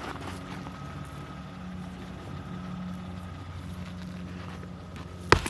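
Mercedes-Benz C320's 3.2-litre V6 idling steadily. Small knocks of rocks and dirt being shifted by hand, with one sharp knock near the end.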